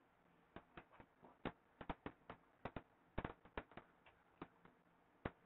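Faint, irregular clicks and taps of a stylus on a tablet screen during handwriting.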